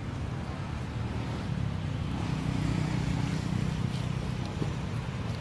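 Steady low outdoor rumble, with a few faint clicks about four seconds in.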